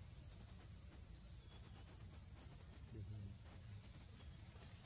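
Steady high-pitched insect chorus, with a faint low rumble beneath it and a faint brief low sound about three seconds in.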